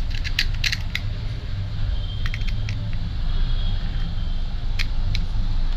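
Crisp fried pani puri shells cracking and crackling as a finger is pushed through their tops: a quick cluster of sharp cracks in the first second, a few more a couple of seconds in and near the end, over a steady low hum.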